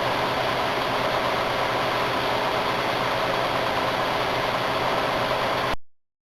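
Maytag Neptune front-load washer running with its drum turning: a steady mechanical whir with a low hum. It cuts off suddenly near the end.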